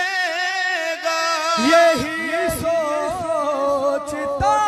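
Male voices singing a Shia manqabat without words: one voice holds long, wavering notes, and about a second and a half in a second, lower male voice takes up the melody.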